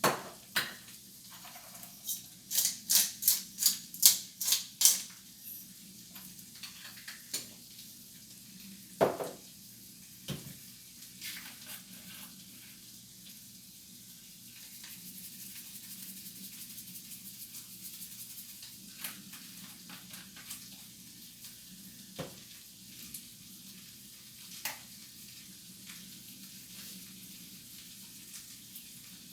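Kitchen cooking sounds: food sizzling faintly in a pan, with scattered knocks and clinks of utensils. A quick run of about eight sharp clicks comes a couple of seconds in.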